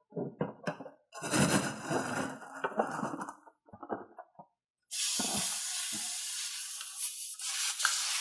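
Slime and containers being handled: a few clicks and taps, a couple of seconds of squishing and stirring, then a steady hiss from about five seconds in.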